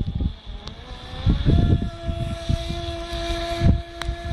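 Electric RC speedboat's motor whine rising in pitch over the first second and a half as the boat speeds up, then holding a steady high note at full speed. Gusts of wind rumble on the microphone throughout, and there is a single click near the end.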